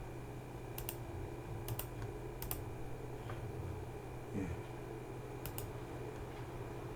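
A few scattered keystroke clicks on a computer keyboard, several in quick pairs, over a steady electrical hum.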